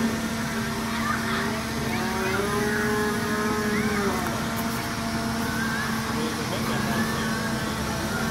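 The Grand Éléphant of Nantes, a giant diesel-hydraulic walking machine, running with a steady low mechanical rumble and a droning hum that stops about four seconds in.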